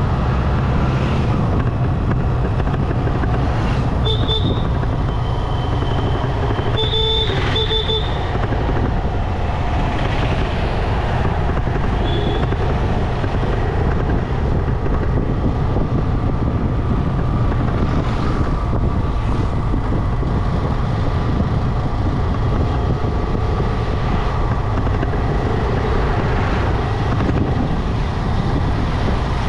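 Steady running noise of a motorbike ride on an open road: engine and tyre drone with heavy wind rumble on the microphone. A few short high beeps sound about four and seven seconds in, with a faint one near twelve seconds.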